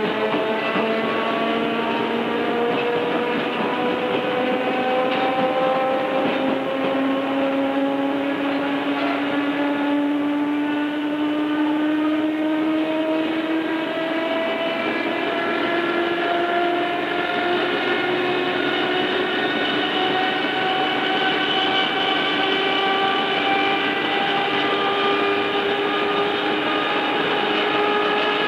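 Tobu 5050 series electric train heard from inside the car, its nose-suspended traction motors and gears whining and rising steadily in pitch as the train gathers speed, over the rumble of running on the rails. The recording is somewhat distorted.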